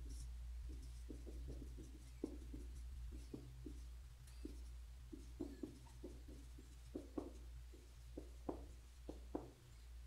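Marker pen writing on a whiteboard: short, irregular strokes and taps of the felt tip as letters and symbols are drawn, over a steady low hum.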